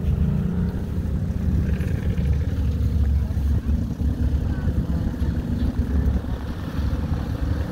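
Tractor engine idling with a steady low rumble.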